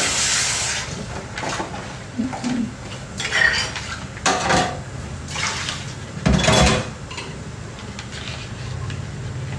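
Cut vegetable chunks knocking and clattering against a plastic colander as they are handled, in short irregular bursts, with a louder knock about six and a half seconds in. Water runs briefly at the start.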